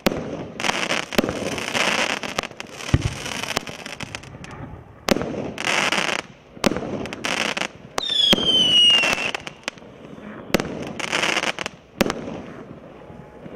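Aerial fireworks going off in quick succession: sharp bangs, several of them followed by about a second of crackling. About eight seconds in, a whistle falls in pitch.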